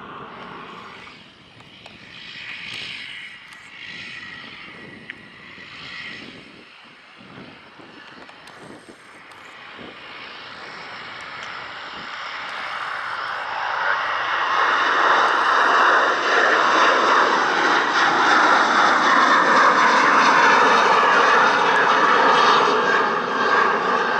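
Boeing 737-800's CFM56-7B turbofan engines at takeoff thrust: a jet roar that builds from about halfway through as the aircraft lifts off and climbs away, loudest near the end. Before it, fainter jet noise from an Airbus A320 that is already climbing away.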